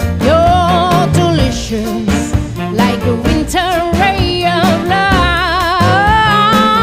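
Background music: an upbeat swing-style song with a singer's vibrato-laden melody over a steady beat and bass.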